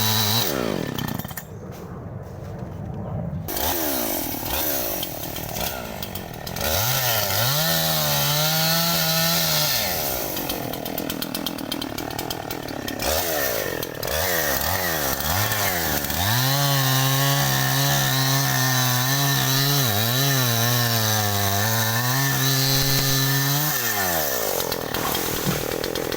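52cc single-cylinder two-stroke petrol chainsaw being revved between idle and high speed. It drops to idle in the first seconds, revs up for a couple of seconds, then holds at high revs for several seconds before falling back near the end.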